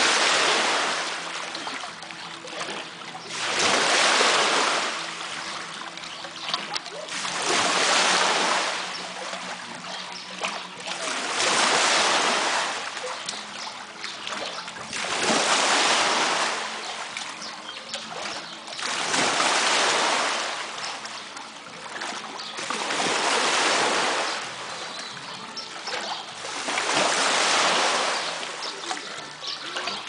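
Artificial waves in a shallow shore pool washing in over sand and around rocks, one surge about every four seconds.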